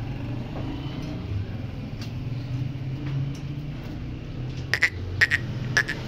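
A steady low rumble, with three short, sharp knocks about half a second apart near the end.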